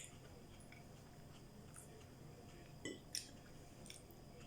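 Faint chewing of food over near silence, with a few soft clicks and smacks: one at the start and two about three seconds in.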